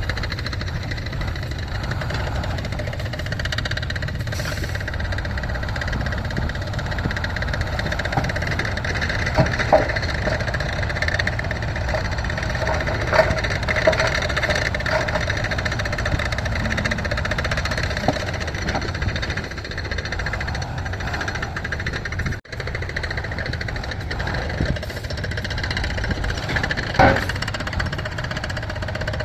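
Heavy construction machinery engines running steadily under work, with a few short clanks scattered through.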